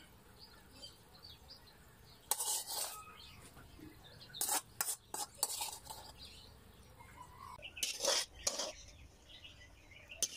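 Metal ladle clinking and scraping against a ceramic plate as it turns stir-fried cabbage: short clinks about two seconds in, several more mid-way and a cluster near the end.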